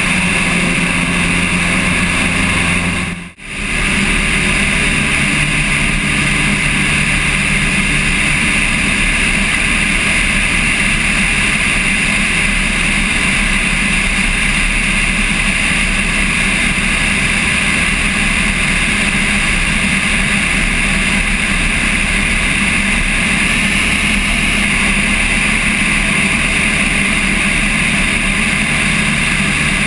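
Light single-engine Cessna's piston engine and propeller droning steadily, mixed with wind rushing over a wing-mounted GoPro. About three seconds in the sound dips out briefly and comes straight back.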